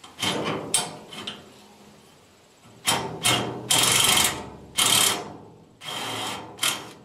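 A hand wrench working a rusted, stuck bolt on a steel lawn cart's tongue: short bursts of metal clicking and rasping. There is a cluster in the first second and a half, then a pause, then a denser run from about three seconds in, the longest burst lasting about a second.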